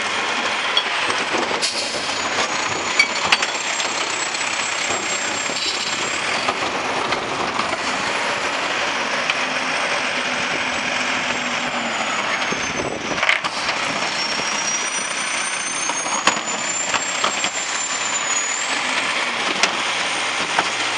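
Mack LEU garbage truck's diesel engine running as the truck moves along the street, with a high whine that rises and falls with engine speed. A brief sharp burst of noise comes about two-thirds of the way in.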